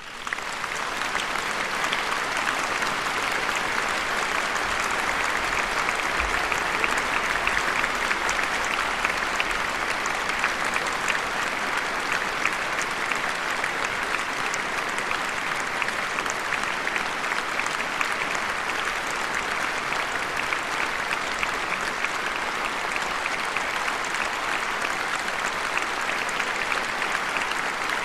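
Concert-hall audience applauding, starting suddenly and then holding steady as a dense patter of many hands clapping.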